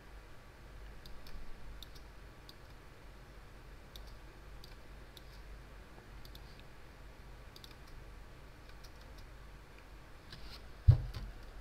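Computer mouse clicking every so often, scattered single clicks over a low steady hum, with one sudden low thump near the end.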